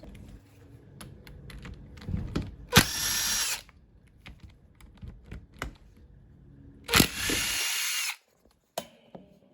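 Electric drill run in two short bursts of about a second each, a few seconds apart, backing out fasteners on a two-stroke lawnmower engine. Scattered clicks and knocks of parts being handled come between the bursts.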